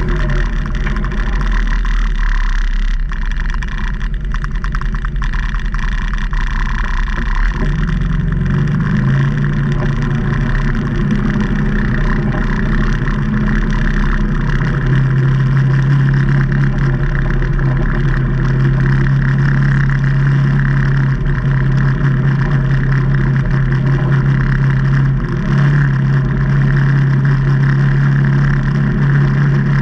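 The engine of a 2019 Can-Am Maverick Trail 800 side-by-side, a Rotax 800cc V-twin, running steadily while the machine is driven along a trail. Its engine speed and pitch shift a few times.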